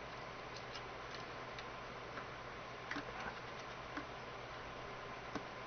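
Small screwdriver prying at the plastic bezel of a TomTom One GPS: scattered faint clicks and ticks of plastic, with a sharper click near the end.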